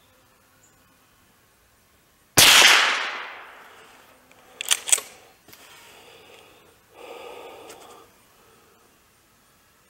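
A single shot from an FN Browning Trombone .22 LR pump-action rifle, a sharp crack with a ringing tail that dies away over about a second and a half. About two seconds later the pump slide is worked back and forward, two quick metallic clacks that eject the spent case and chamber the next round. A brief rustle follows about a second later.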